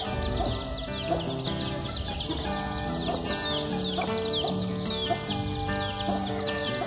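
A brood of chicks peeping continuously, a rapid stream of short, high, falling chirps, with occasional low clucks from the mother hen. Background music with long held notes plays underneath.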